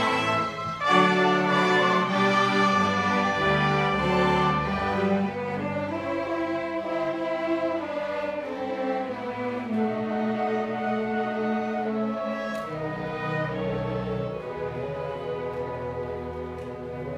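Combined band and orchestra playing a Christmas piece, with violins and cellos prominent in sustained chords; the playing is louder for about the first five seconds, then drops to a softer passage.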